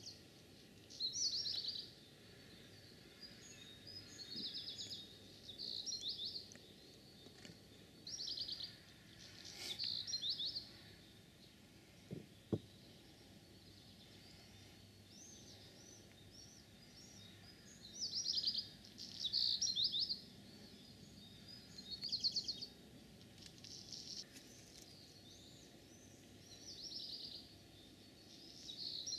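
A songbird singing: short trilling phrases of about a second each, repeated every couple of seconds with a pause of several seconds midway, over faint steady outdoor background noise.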